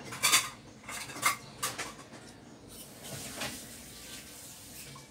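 Sharp clicks and light clatter of the opened Cherry Mobile Flare J3 phone's plastic and metal parts being handled by hand, with a cluster of clicks in the first two seconds, the loudest near the start, then a softer scraping sound about three seconds in.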